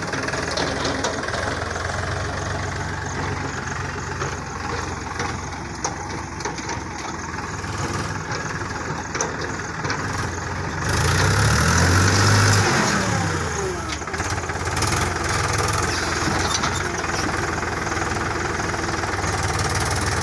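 Small tractor's engine running steadily while it works a loader attachment. About eleven seconds in, the engine revs up under load, then drops back over the next couple of seconds.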